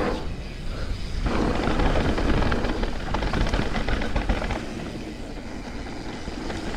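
Wind buffeting a helmet-mounted camera's microphone during a fast mountain-bike run, mixed with the rattle and clatter of the bike over rough, wet trail. It eases off about four and a half seconds in.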